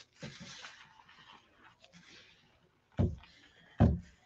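Decoupage paper being rubbed and smoothed down by hand, a soft rustling hiss. Near the end come two short, loud bursts of noise, under a second apart.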